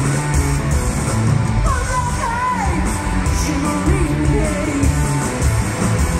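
Live rock band playing loudly: electric bass, electric guitar and drum kit, with a high, wavering lead line over them.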